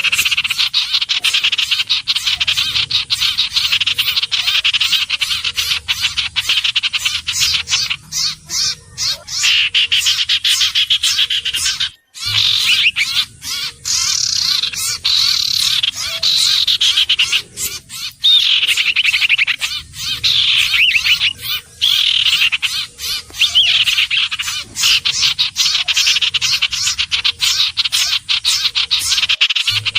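Iora song and calls: dense high chirping and trills with repeated falling sweeps, about one every two seconds, and a brief gap about twelve seconds in.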